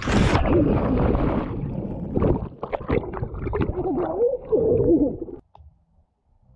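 Splash as the camera plunges into a swimming pool, then muffled underwater bubbling and gurgling heard through the camera's own microphone below the surface, with wavering low tones; it cuts off suddenly about five seconds in.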